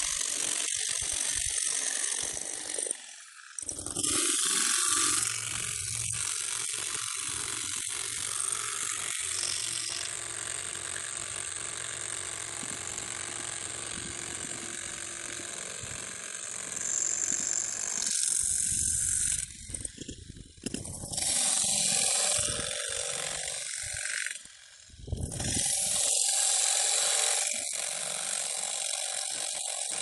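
Demolition hammer (jackhammer) chisel pounding into concrete rubble with rapid, continuous blows, stopping briefly a couple of times and restarting.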